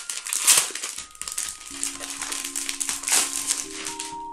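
Plastic packaging crinkling and rustling as it is handled, in irregular bursts that are loudest about half a second in and again near three seconds. Soft background music with held notes comes in about a second in.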